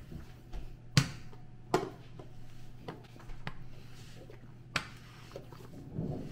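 Sharp knocks and lighter taps of kitchen work on a countertop: three loud ones, about a second in, nearly two seconds in and near the five-second mark. A steady low hum runs underneath.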